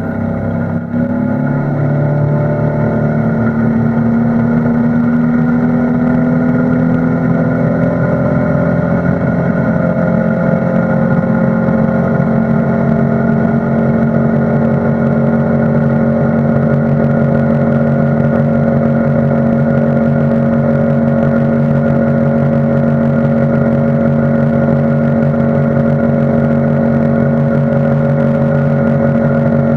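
Outboard motor running with the boat under way at speed, heard from on board. Its pitch rises a little over the first few seconds, then it runs steadily.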